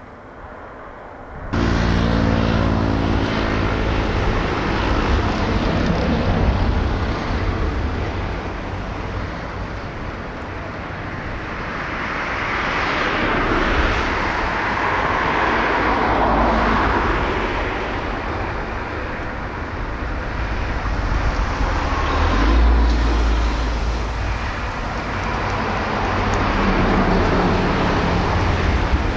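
Road traffic noise: a motor vehicle engine runs steadily nearby, and the sound swells as a vehicle passes about halfway through.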